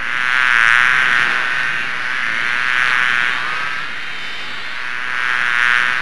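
Flies buzzing in flight: a wavering, high wingbeat buzz that swells louder three times, about a second in, around three seconds in and near the end.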